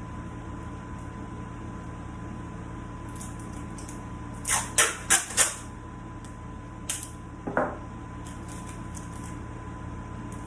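Four quick sharp clicks of hard objects knocking together about halfway through, then two lighter ones a little later, over a steady hum.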